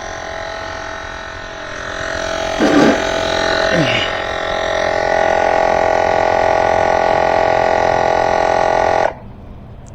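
Battery-powered tire inflator pump running with a steady droning hum as it pumps up an e-bike tire. It grows louder about two seconds in, then shuts off abruptly near the end as it finishes.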